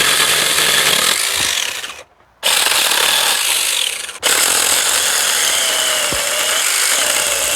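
A saw cutting through a citrus branch: continuous rough wood-cutting noise that breaks off briefly twice.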